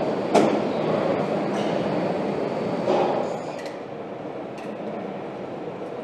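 Factory floor noise on a vehicle assembly line: a steady hum of machinery with a sharp click about half a second in and a softer knock around three seconds, the noise dropping a little soon after.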